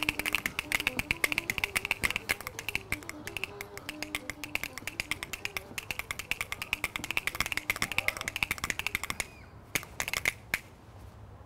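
Rhythm bones, two wooden pairs held in both hands, clacking in a rapid, rhythmic roll. The roll stops about nine seconds in, followed by a couple of single clacks.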